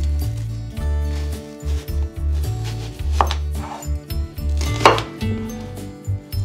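Kitchen knife cutting through peeled onions onto a wooden cutting board: two sharp knocks about a second and a half apart, the second the louder, over background music.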